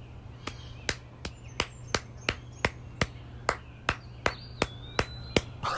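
Steady rhythmic hand clapping, about three claps a second, over a faint low hum.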